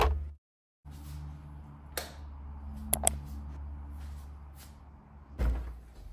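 Kitchen sounds over a steady low hum: a few sharp clicks, then a heavier thump about five seconds in as a refrigerator door is pulled open.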